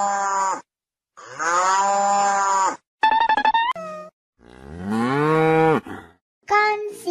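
Cattle mooing: a series of long, drawn-out moos with short gaps between them, the last one sliding down in pitch as it ends.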